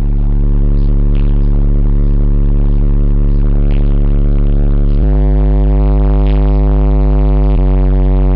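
Sundown Audio subwoofer system playing very loud, deep sustained bass notes inside the van's cabin. The bass holds one note, then steps to a new pitch about five seconds in and again near the end.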